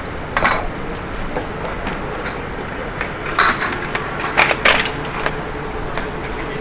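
Street ambience in a busy alley: a steady rush of background noise with a few short, sharp clinks, the loudest of them bunched about three and a half to five seconds in.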